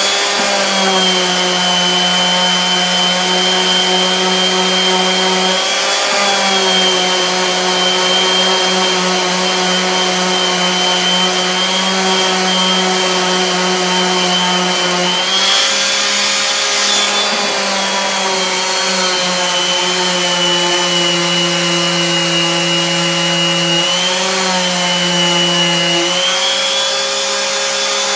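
Electric sander running steadily while sanding down hardened Bondo body filler on a wooden nightstand, with a steady motor whine that shifts slightly in pitch a few times as the load changes.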